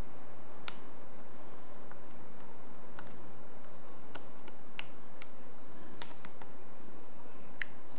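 Small metal parts of a Daiwa Steez SV TW 2024 baitcasting reel clicking as the reel is taken apart by hand: about a dozen sharp, irregularly spaced clicks and taps.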